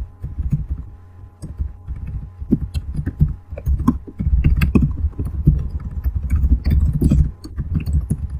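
Fast typing on a laptop keyboard: a run of key clicks with dull low thumps, busiest from about four to seven seconds in.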